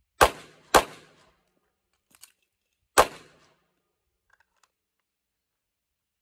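Three handgun shots: two in quick succession about half a second apart, then a third about two seconds later, each a sharp crack with a short echo.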